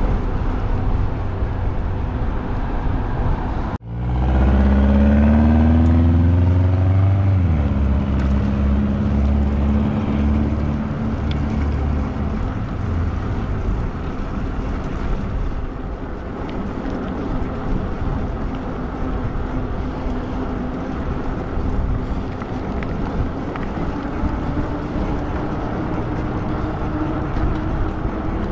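Steady road and wind noise from a moving ride. About four seconds in, after a brief dropout, a motor vehicle's engine rises in pitch as it accelerates, then holds a steady hum that fades over the next few seconds.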